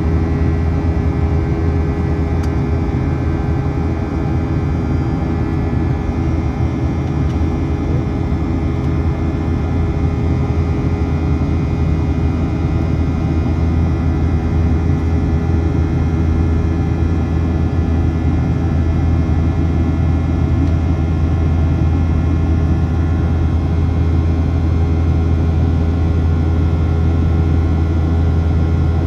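Steady cabin drone of a Boeing 737-700 in flight, heard from a window seat: the CFM56 jet engines' hum and the airflow rush with a few steady tones over them.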